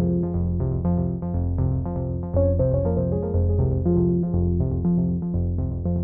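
Background music: synthesizer and keyboard notes over a steady bass beat.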